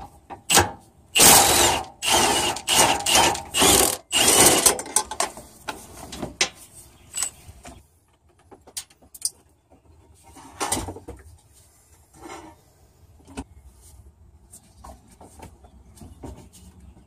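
Hand ratchet with a socket on a long extension turning a bolt under a plastic fuel tank: loud, quick runs of ratchet clicks for the first few seconds, then lighter scattered clicks and knocks.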